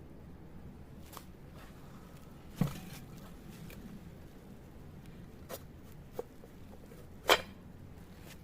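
Handling noises from parts and tools being picked up and set down: five separate sharp knocks and clicks, with a loud one about two and a half seconds in and the loudest near the end.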